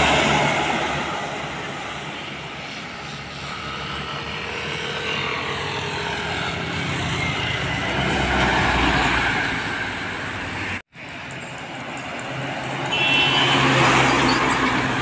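Laden diesel goods trucks driving past one after another, each passing as a swell of engine and tyre noise that rises and fades. The last is a large multi-axle truck passing close by near the end. The sound drops out for an instant about eleven seconds in.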